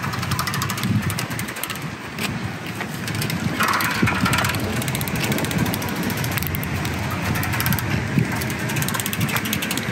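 Steady, unbroken rushing noise, fairly loud, with a brighter hiss for about a second roughly four seconds in.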